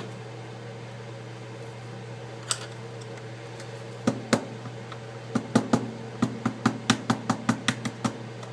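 Light metal taps on a shaped corner tool, bending the aluminium frame lip of an iPad 4 back out: a few single taps, then a quick run of about four taps a second from about halfway through. A steady low hum runs underneath.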